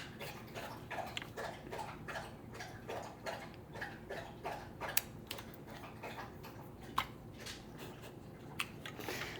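Dog lapping water from a bowl: faint wet clicks, a few each second, with a couple of sharper ticks about five and seven seconds in.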